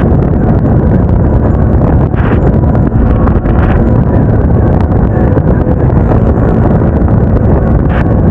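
Motorcycle riding on the road: a steady run of engine and road noise, heavily buffeted by wind on the action camera's microphone, with a few short gusts.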